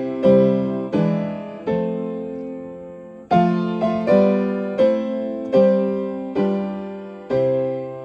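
Upright piano playing a hymn accompaniment in C major: full chords struck one after another, one held for about a second and a half near the middle, and another held and left to ring near the end.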